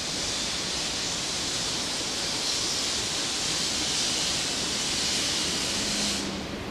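JNR Class D51 steam locomotive venting steam from its open cylinder drain cocks as it moves off, clearing condensate from the cylinders: a loud, steady hiss that cuts off about six seconds in.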